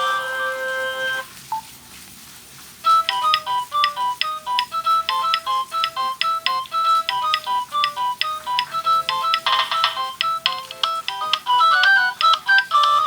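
Samsung SGH-A157 flip phone's speaker playing Nokia ringtones. One ringtone ends on a held note about a second in, and a short click follows. After a brief pause a new ringtone starts, a quick, steady melody of short electronic notes.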